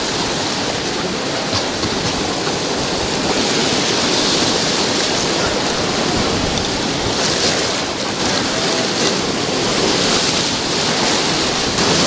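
Whitewater rapid rushing around a raft, a loud steady wash of churning river water that grows a little louder a few seconds in.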